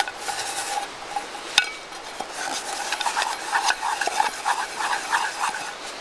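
A clump of moss scrubbed around the inside of an aluminium camping pot to scour out stuck-on melted cheese. The rubbing is steady at first, with a single sharp knock about a second and a half in, then turns into quick scrubbing strokes, about four a second, over the second half.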